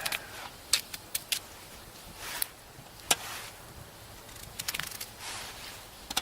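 Irregular sharp clicks and knocks, with a quick cluster about three-quarters of the way in, from cutting potatoes with a knife and putting the pieces into a cooking pot.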